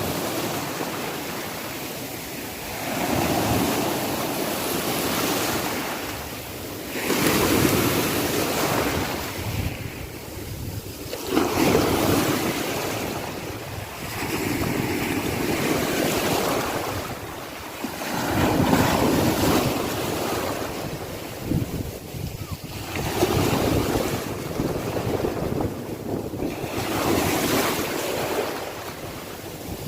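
Sea waves breaking on a shore, the surf swelling and ebbing every few seconds, with some wind on the microphone.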